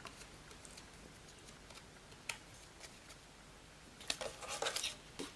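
Faint rustling and small clicks of paper card being handled as a die-cut scalloped shape is taken out of its sheet, with a denser burst of crinkling about four seconds in.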